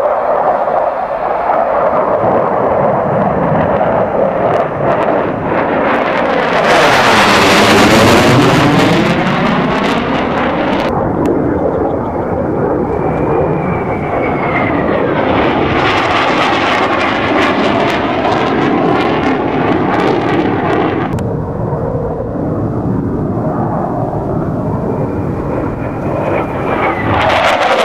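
Jet noise from the twin J79 turbojet engines of a JASDF F-4 Phantom II during a low display pass. It is loud and continuous, swells to its loudest and most hissing about seven to ten seconds in as the jet passes close, and changes abruptly twice, at about 11 and 21 seconds.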